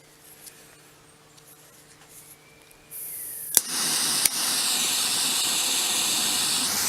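Dremel Versatip butane soldering iron used as a small blowtorch with its tip removed. About three seconds in the gas starts to hiss, two sharp clicks follow, and the torch then burns with a steady loud hiss.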